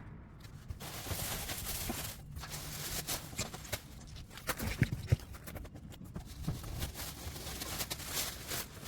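Footsteps and scattered knocks and thumps of things being handled, with a couple of louder thumps about five seconds in.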